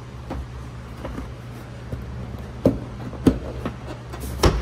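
A few short, sharp knocks or taps over a steady low hum. The three loudest come about two and a half seconds in, half a second later, and near the end.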